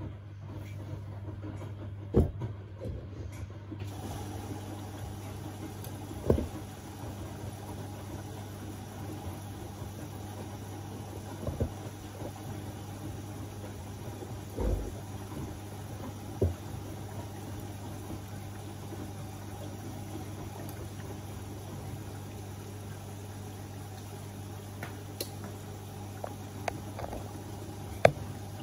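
Beko WMB71642W washing machine filling with water early in a synthetics 30° wash: a steady rush of water with a low hum, broken by occasional short sharp knocks.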